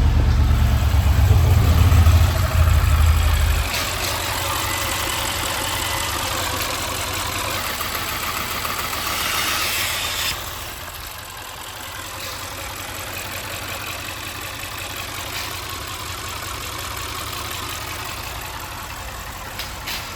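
Audi RS6 C7's twin-turbo V8 running: loud and high for about the first four seconds, then settling to a steady idle.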